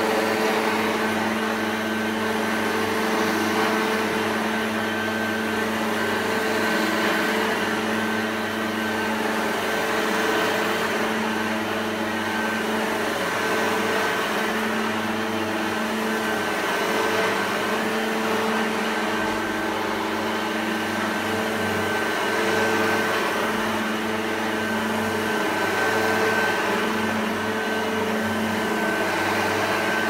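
An electric motor running steadily: a low hum with a thin high whine above it, swelling and easing slightly every few seconds.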